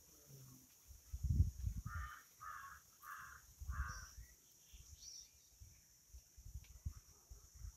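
A crow cawing four times in quick succession, a couple of seconds in, with low rumbles underneath at times.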